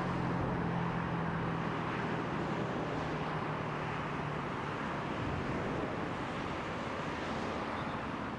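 Semboku Rapid Railway 9300 series electric train running along the line, a steady rush of running noise mixed with road traffic. A low hum under it fades out about halfway through.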